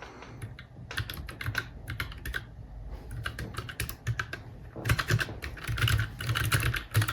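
Keystrokes on a Chosfox L75 mechanical keyboard: scattered keypresses at first, then fast, continuous typing from about five seconds in.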